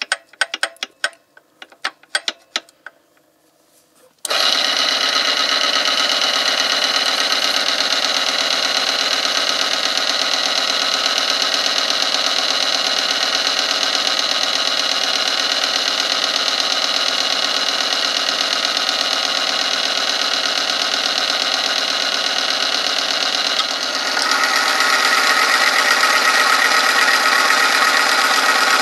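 A few metal clicks as the lever arm of an oil-film friction tester is set. About four seconds in, its electric motor starts and the spinning ring rubs against the loaded metal sample under oil: a loud, steady grinding with several steady high tones. Near the end, after a weight is added to the lever, the rubbing grows louder and harsher.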